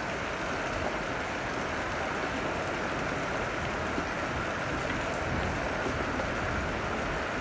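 Torrential downpour: heavy rain pouring onto the road and pavement in a steady, even hiss.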